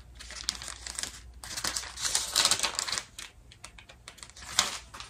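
Thin Bible pages being leafed through: an irregular run of crisp papery flicks and rustles, loudest midway, with one sharp flick near the end.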